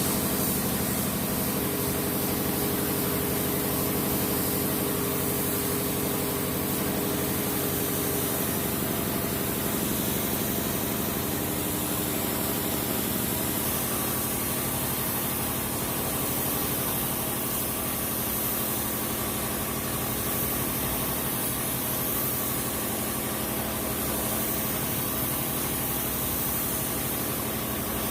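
A machine running steadily, with a continuous high hiss over its hum.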